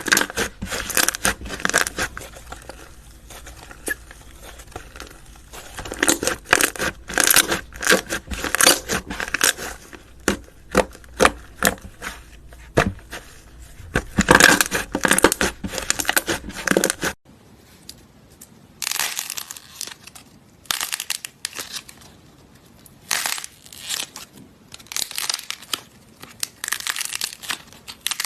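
Crunchy slime being squeezed and crushed by hand, giving dense runs of sharp crackling and popping. About 17 seconds in the sound cuts off abruptly, and what follows is quieter, with separate bursts of crackle a second or two apart.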